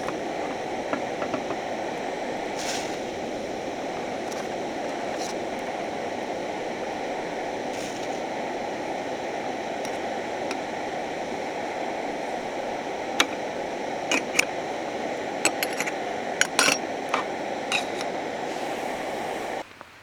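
Light clinks of metal cookware and utensils, a few early and a cluster in the second half, over a steady rushing noise that cuts off abruptly near the end.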